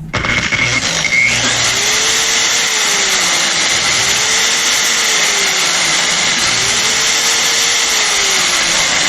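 New electric buffer (car polisher) switched on for its first run and spinning steadily at speed with an even, hissing whir. A fainter whine slides up and down in pitch three times.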